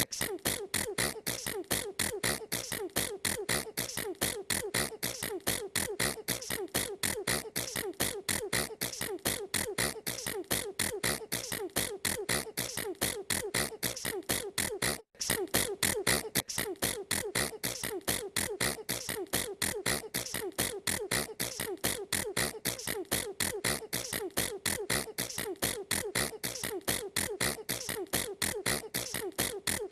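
A girl sneezing over and over in rapid, evenly spaced bursts, about three a second, with one brief break about halfway through.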